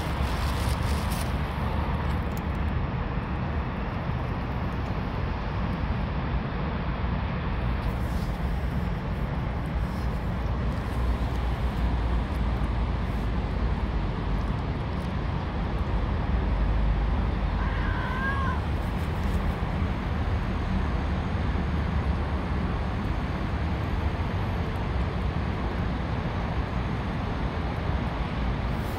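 Steady low rumble of city traffic, with a single short wavering cat meow about two-thirds of the way through.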